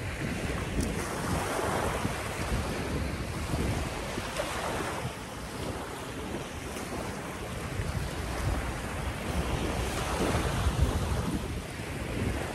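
Small waves breaking and washing up on a sandy beach in slow surges, with wind buffeting the microphone.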